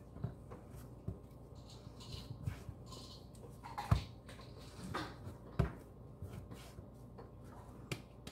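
Hands kneading yeast bread dough on a floured countertop: irregular soft thumps and knocks as the dough is pressed and turned against the counter, the loudest about four seconds in.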